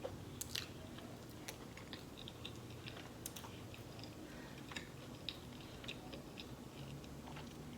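Faint close-up chewing of food: scattered soft mouth clicks and smacks.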